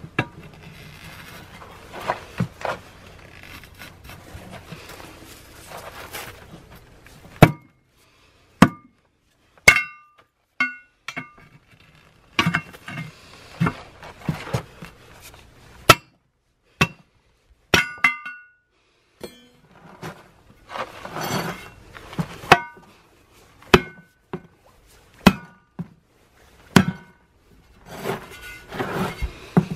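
A steel tire lever and a hammer working against a steel wheel rim to pry off a hard, aged tire by hand. After several seconds of quieter scraping come irregular sharp metallic clanks with a short ring, some in quick pairs, between bouts of scraping and rubbing as the bead is worked off.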